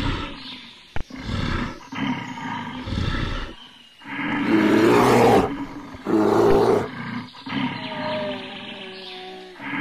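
Brown bear calling: a string of separate calls, the two loudest and longest about halfway through. A sharp click about a second in.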